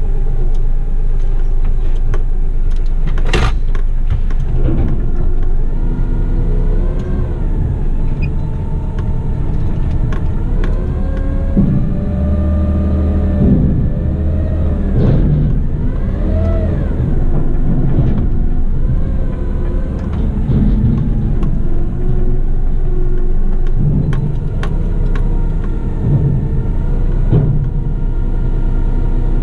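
Diesel engine of a front-lift garbage truck heard from inside the cab, running steadily and revving up and down as it drives the hydraulic lift forks through a bin pick-up. There is a sharp knock about three seconds in.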